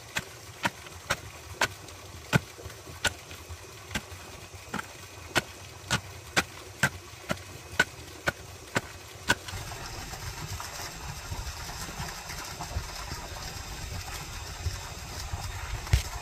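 A run of sharp knocks, about two a second, that stops about nine seconds in, followed by a steady low rumble with one louder thump near the end.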